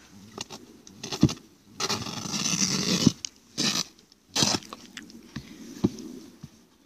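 A dog eating from a seat scattered with food: irregular bursts of chewing, crunching and scraping, loudest for about a second a couple of seconds in, then in two shorter bursts, with scattered sharp clicks.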